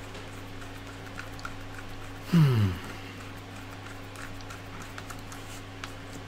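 Faint clicks and taps of hands and a screwdriver on the printer's plastic electronics box, over a steady low hum. About two seconds in, a short vocal sound falling in pitch, lasting about half a second, is the loudest thing.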